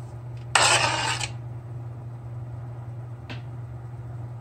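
Sliced venison liver scraped off a wooden cutting board into a cast-iron skillet: one short rushing scrape of under a second, followed by a faint tick. A steady low hum runs underneath.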